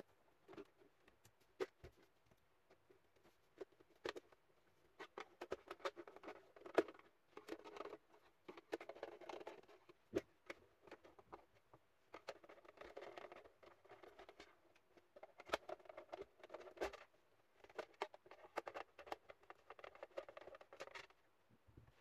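Plastic clicks, taps and scraping as a Bluetooth speaker's plastic side pieces are pulled off and its back shell is pried open, with runs of scraping in the middle and toward the end.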